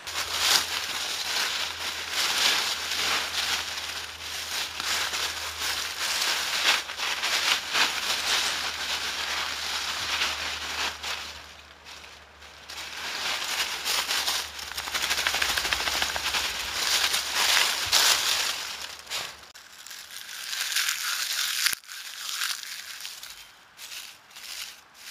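Dry leaves and twigs rustling and crunching in irregular bursts of crackling, easing off briefly about halfway and again near the end.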